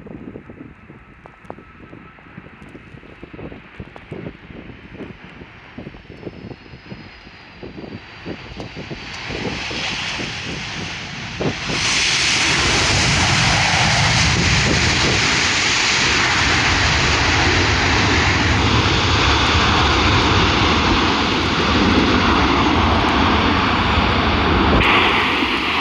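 Jet engines of a four-engined Boeing 747 freighter coming in to land: a faint high whine, falling in pitch, grows louder over several seconds. About twelve seconds in, the sound jumps suddenly to a loud, steady jet roar and stays there. Wind buffets the microphone early on.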